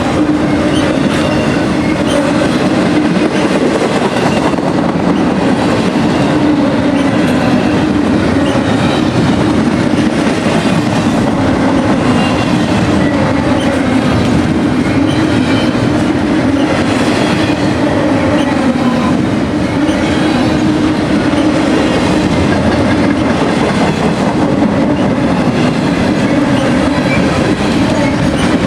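A long freight train's cars rolling past: a loud, steady rumble of steel wheels on rail.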